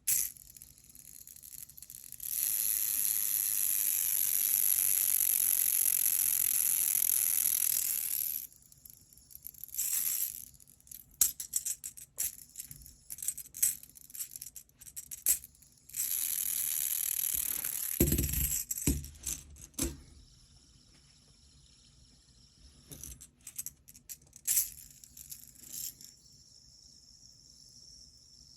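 Aluminium Gear Storm crank fidget worked by hand: two long stretches of steady, high whirring as its gears spin, of about six and four seconds. Between them come metallic clicks and rattles, and there is a low knock about eighteen seconds in.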